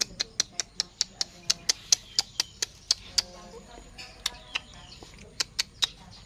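Birds pecking at scattered rice on a hard surface: rapid, irregular sharp taps, about four or five a second with a couple of short pauses, and faint chirps.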